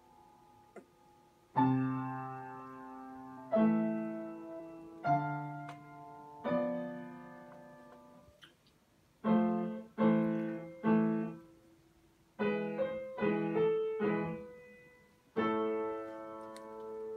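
Slow solo piano music: single chords struck and left to ring out and fade, a few quicker chords in the middle, and a long held chord near the end.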